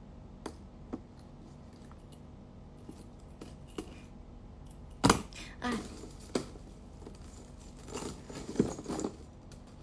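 Scattered small clicks and rustling from handling the phone, with a louder rustle about five seconds in, followed by a few brief voice sounds.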